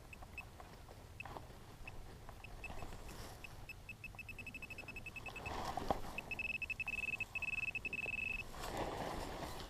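Metal-detector pinpointer beeping in short high ticks that come faster and faster as it closes in on a buried target, then sounding one steady tone with a brief break, the sign that the target is right at its tip. Soft rustling of hands in loose soil and dry grass between the beeps.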